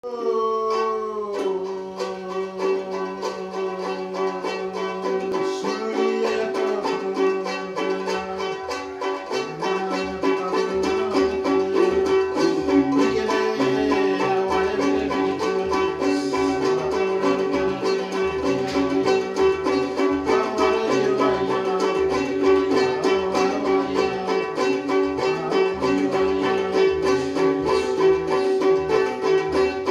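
Two small handmade wooden lutes strummed together in a quick, steady rhythm, one note ringing steadily under the strumming, with men singing along.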